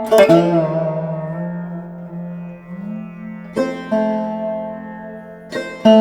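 Background music of plucked string notes, struck three times and left to ring out and fade.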